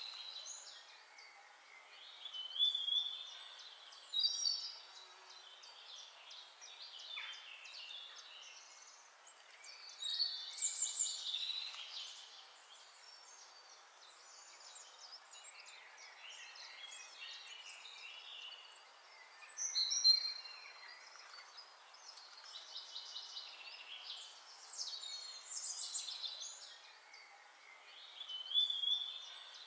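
Birds singing: bursts of high chirps and quick trills every few seconds over a faint hiss.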